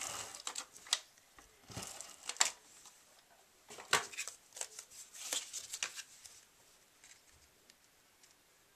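Cardstock being handled and pressed down by hand: irregular paper rustles and light taps, thinning out after about six seconds.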